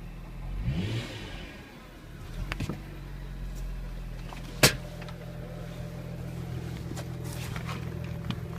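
2000 Audi S4's 2.7-litre twin-turbo V6 running with a steady drone, revved once about a second in and more lightly a little later; the owner suspects a blown turbo and knows the engine is overfilled with oil. A single sharp click about halfway through is the loudest sound.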